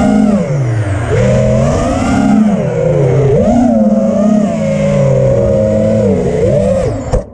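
Armattan Rooster FPV quadcopter's four Cobra CP2207 2450KV brushless motors and propellers buzzing, heard from the camera on the quad itself. The pitch rises and falls again and again as the throttle is punched and eased, and the sound cuts off suddenly near the end.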